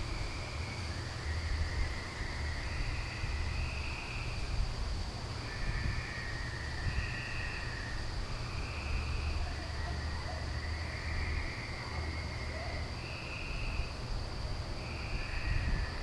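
Outdoor night chorus: a steady high-pitched insect-like trill, with repeated short calls of about a second each at two alternating pitches, over a low wind rumble on the microphone.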